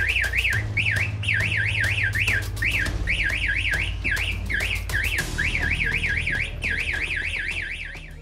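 Electronic siren of an escape-room prop wailing in rapid up-and-down sweeps, about four a second with brief breaks, set off as the final puzzle is solved. It fades away near the end.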